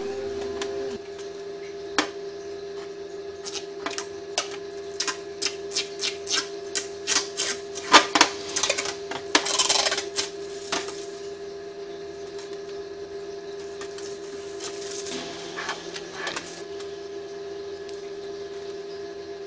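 Irregular sharp clicks and clinks of small metal parts being handled on a workbench, packed most closely a third to halfway through, with a brief scrape near the middle, over a steady hum.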